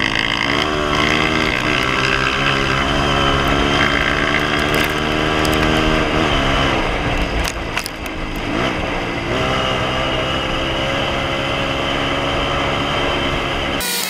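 Single-cylinder four-stroke engine of a Honda CRF230F trail bike running under load at riding speed. Its note climbs and drops sharply a few times as the rider shifts gears and works the throttle.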